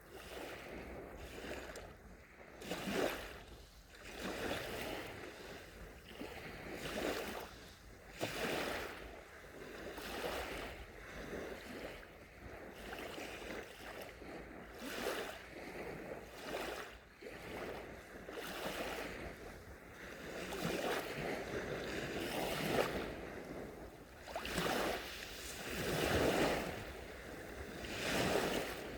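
Gentle sea waves washing onto a beach, a soft rushing hiss that swells and falls every one to three seconds, with a few stronger surges breaking near the middle and toward the end.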